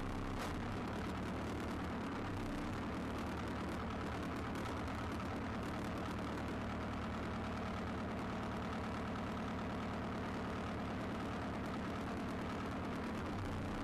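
Tractor engine running steadily, heard from the operator's seat, with a fast, even low pulse.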